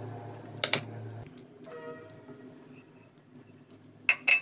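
Semolina poured into a steel mixing bowl, with a few sharp clicks of metal tapping the bowl: one about a second in and two close together near the end. A low hum stops suddenly about a second in.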